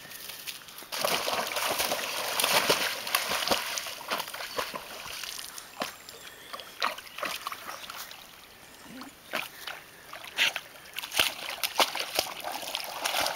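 A havana-brown Appenzeller Sennenhund plunging into a pond and swimming. A loud rush of splashing starts about a second in and lasts a couple of seconds, followed by irregular smaller splashes and sloshes of water as the dog paddles.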